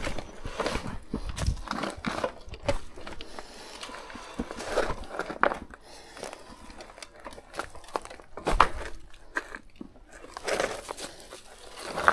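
Irregular crunching, clicks and knocks as a folding e-bike is ridden off-road over rough ground.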